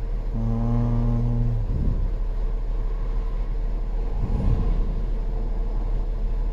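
2008 Volkswagen Passat 3.6 V6 running with a steady low rumble. About half a second in, a steady pitched hum sounds for about a second.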